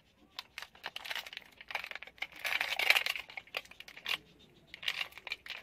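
Clear plastic cake wrapper crinkling in irregular bursts as a small chocolate cake is eaten hurriedly from it.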